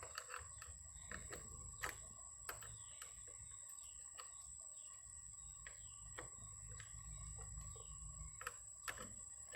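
Light, scattered metallic clicks from a wrench tightening the clamp on the negative battery cable. Faint bird chirps sound in the background.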